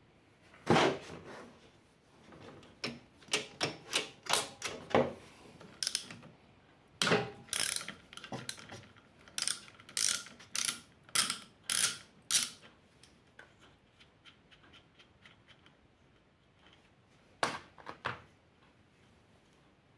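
Hand socket ratchet clicking in short runs on the spring bolts of a Yamaha YBR 125 clutch pressure plate, with a few sharper metallic knocks among the clicks.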